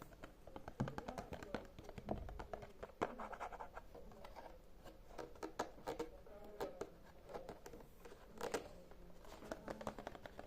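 ASMR tapping and scratching: many quick light taps, clicks and scratches in irregular runs, with a few sharper knocks.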